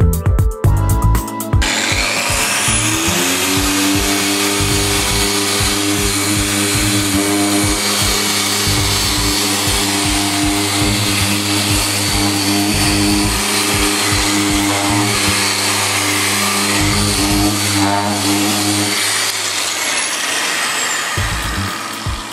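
Electronic background music with a steady beat and a dense, buzzing synth layer, swelling in about two seconds in and fading back down near the end.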